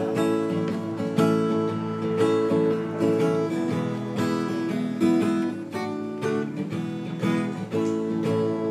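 Background music: an acoustic guitar strumming chords, the instrumental intro to a children's song.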